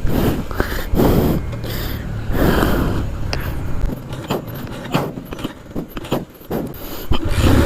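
Mahindra Centuro's single-cylinder engine being started after running dry of petrol and refuelling: repeated start attempts with the engine sputtering, then catching and running near the end.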